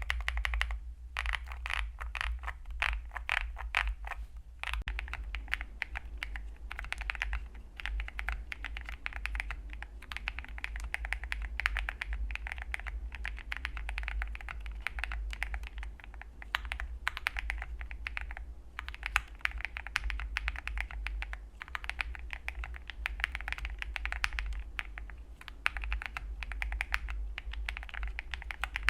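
Typing on a Wind X98 mechanical keyboard with PBT keycaps: a rapid stream of keystroke clacks with short pauses. About five seconds in, the sound changes from stock Gateron Epsilon switches in a fully foamed case to lubed Tecsee Blue Sky switches with some foam.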